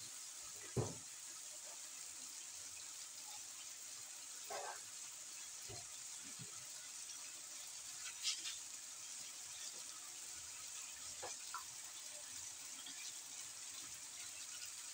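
Sliced bottle gourd and sardines cooking in sauce in a wok over a gas flame: a low, steady sizzle with a few faint pops and crackles.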